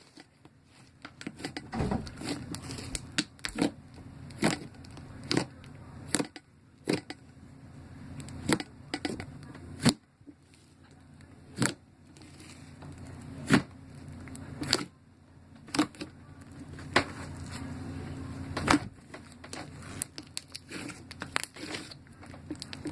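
Slime being squeezed and poked by hand, giving sharp pops and crackles about once a second, some much louder than others.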